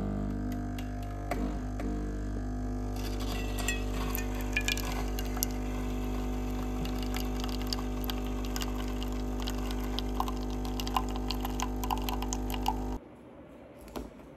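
A steady machine hum with light clinks and clicks over it; the hum cuts off abruptly near the end.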